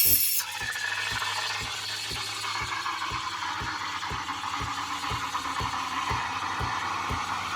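Sage Barista Touch's automatic steam wand steaming and frothing oat milk in a jug. A loud hiss of steam drops about half a second in to a steadier, lower hiss, with a low pulsing about three times a second from the machine underneath.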